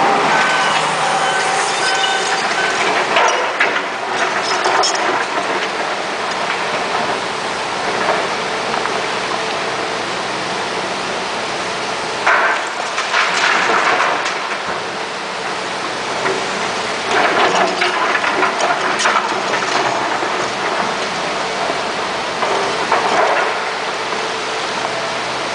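Hitachi Zaxis 250 LCN excavator and Volvo A25D articulated dump truck running steadily, with about four loud bursts of rocks clattering as the bucket loads the truck's dump body.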